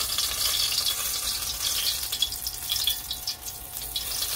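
Spring rolls deep-frying in hot oil: a steady sizzle with many small crackling pops. The spattering comes from liquid from the chow mein filling seeping into the oil.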